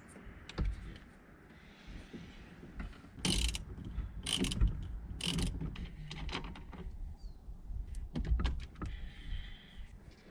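Mechanical clicks and knocks of hand work on a car's steering wheel, with three louder short strokes about a second apart near the middle and another cluster of clicks later.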